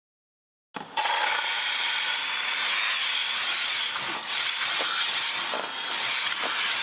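A steady, loud hiss from a car-interior cleaning tool that starts abruptly about a second in, with a few faint ticks under it later on.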